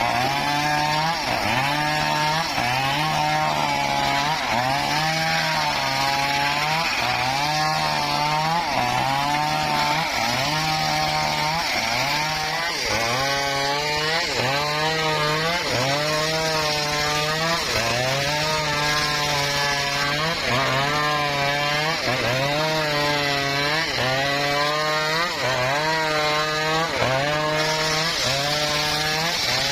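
Circular saw slicing wood in quick repeated cuts, its pitch dropping as the blade loads in each cut and recovering between cuts, about once a second or a little slower.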